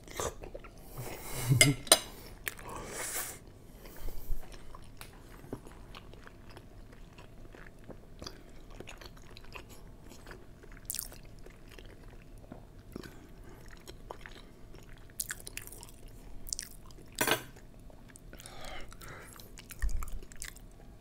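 Close-miked chewing of soft cathedral window gelatin cubes, with wet mouth and lip smacks, loudest in the first few seconds. A single sharp click comes about 17 seconds in, and a low thump about 20 seconds in.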